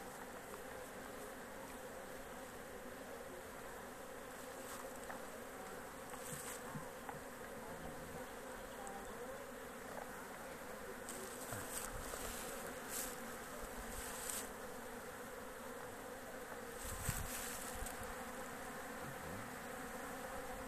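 A colony of honeybees buzzing steadily over an open hive of comb frames. A few short bursts of noise come about halfway through and again near the end.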